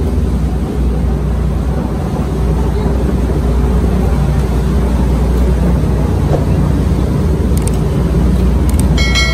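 A steady low engine drone runs throughout. Near the end come two light clicks, then a short ringing chime.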